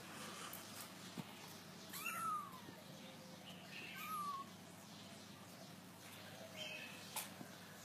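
Kitten mewing: three short, high mews about two seconds apart, each rising then falling in pitch.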